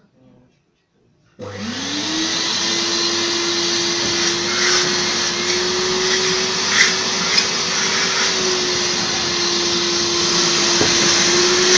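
Kärcher washing (spray-extraction) vacuum cleaner switching on about a second and a half in. Its motor whines up in pitch within a moment, then runs steadily with a loud rushing hiss and a few brief louder swells.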